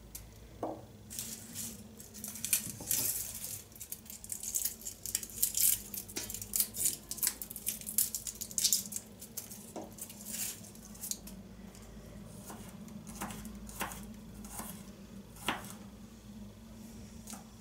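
Irregular clicks, taps and scrapes of kitchen utensils and dishes while garlic is being prepared, over a steady low hum.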